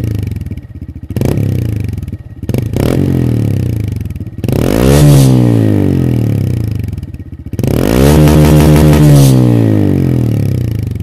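Honda Monkey 125's single-cylinder engine revving through a custom full titanium exhaust. It gives a few short throttle blips, then two longer revs about four and eight seconds in, each falling back toward idle.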